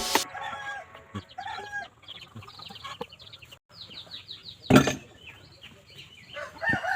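Chickens clucking, with scattered high bird chirps, including a quick run of falling chirps about four seconds in. One sharp knock sounds just before the five-second mark.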